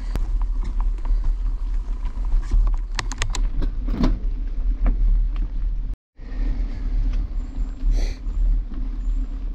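Mountain bike riding along a dirt forest track: a steady low rumble of the tyres rolling, with scattered knocks and rattles from the bike over bumps. The sound cuts out briefly about six seconds in.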